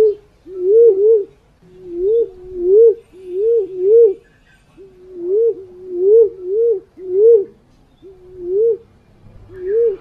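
Punai walik fruit dove cooing, played as a lure call: a string of short hoots, each starting level then rising and dropping back, mostly in close pairs, about a dozen in all.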